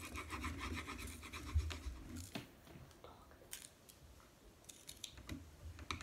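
Coloured pencil scratching on paper in quick back-and-forth shading strokes for about the first two seconds, then stopping, with only a few light clicks after.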